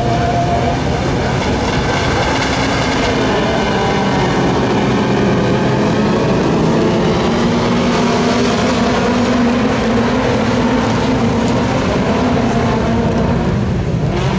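A pack of autocross race cars, small hatchbacks, running hard together on a dirt track. Several engines overlap at high revs, their pitches rising and falling as the drivers work the throttle.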